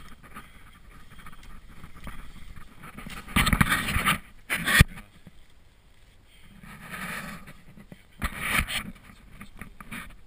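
Off-road vehicle moving over a rough forest trail: uneven rumbling and scraping, with loud bursts a few seconds in and again near the end, and one sharp knock about five seconds in.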